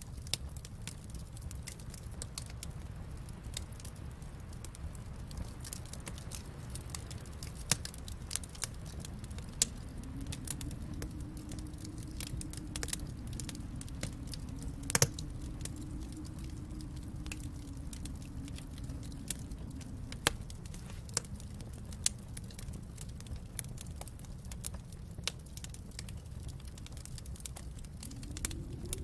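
Wood fire burning in a fireplace: a steady low rumble with scattered crackles and pops, one louder pop about halfway through. A low hum swells a third of the way in and fades again a little after two-thirds.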